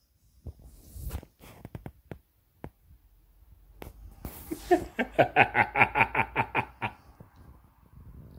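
A man laughing: after a few soft clicks and a sharp breath in, a run of quick 'ha-ha' pulses, about five a second for some two seconds, starting about five seconds in.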